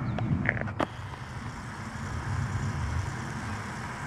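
Steady low outdoor rumble, with a few brief clicks and a short high tone in the first second.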